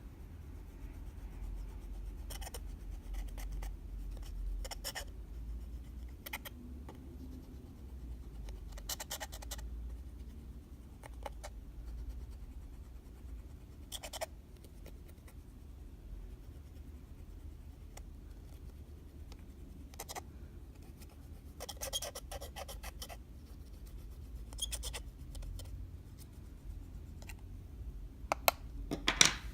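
Clear slime being worked by hand with makeup and glitter mixed in: scattered short clusters of sticky clicks and scratchy crackles a few seconds apart, the loudest near the end.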